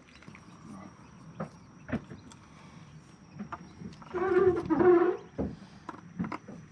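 Two loud animal calls in quick succession about four seconds in, over scattered light clicks and knocks.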